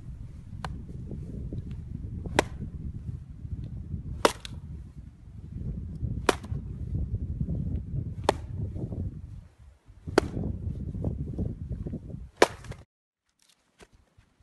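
A hydraulic axe striking firewood in a regular cycle, a sharp crack about every two seconds, over a steady low rumble from its power unit. The sound stops suddenly near the end, leaving a few faint clicks.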